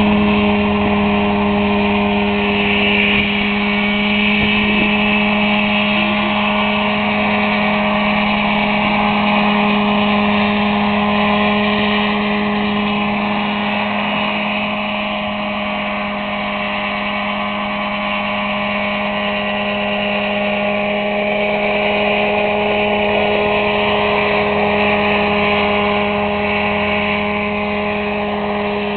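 Mosquito single-seat ultralight helicopter running and flying low, its engine and rotors making a steady drone at one even pitch.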